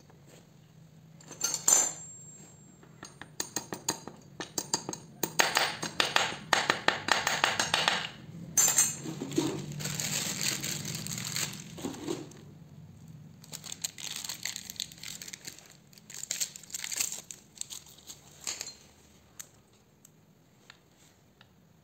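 Hand work on a chainsaw's crankcase: small metal parts and tools clicking and clinking, with stretches of crinkling, in two busy spells about five seconds in and again about fourteen seconds in.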